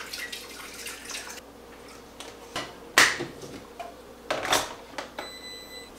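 Kitchen counter work with water poured and a glass vessel and electric kettle handled, with a sharp clink about three seconds in and more clattering a second later. A short high steady tone sounds a little after five seconds.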